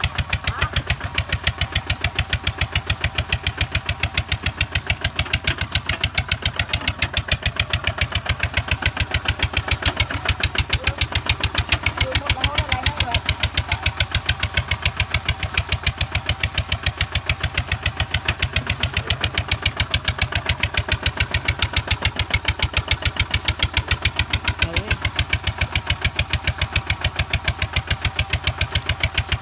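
Single-cylinder diesel engine of a two-wheel walking tractor running steadily under load while it pulls a plough through rice-field mud, a fast, even chugging of firing pulses.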